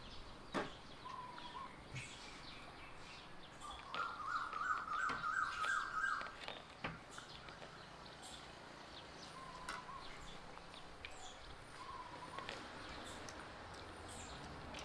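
Birds calling outdoors: a short call repeats every few seconds, and a louder run of quick chirping notes comes about four seconds in and lasts a couple of seconds. A few faint sharp clicks come in between.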